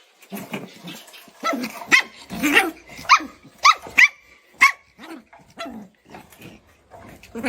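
A dog barking in short, high yaps, about a dozen of them at an uneven pace.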